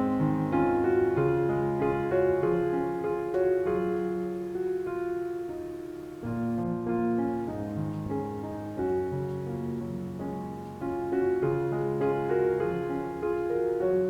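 Background piano music: a slow, gentle melody of sustained notes over low chords.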